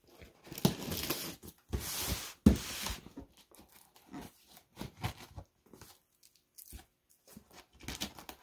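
A knife cutting through packing tape and cardboard on a shipping box, with several long tearing rasps in the first three seconds, then scattered short scrapes and knocks.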